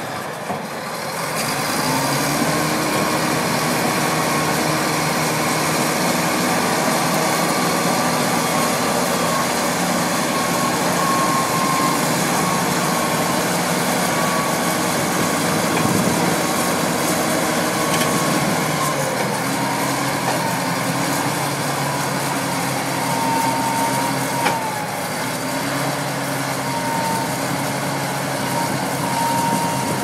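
Shantui SD16 crawler bulldozer's diesel engine running steadily as the machine works. Its pitch shifts about two-thirds of the way through, and there is one short sharp knock near the end.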